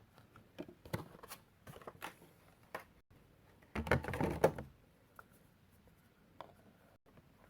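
Handling of a vinyl Funko Pop figure and its cardboard-and-plastic packaging: scattered light clicks and taps, with a louder rustle lasting about a second near the middle.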